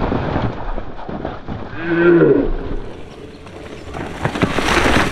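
Small 16-inch mini mountain bike rattling and its knobbly tyres grinding over a rough, muddy downhill trail, with a few knocks. About two seconds in, a person gives a drawn-out hooting call, and near the end a louder scraping rush.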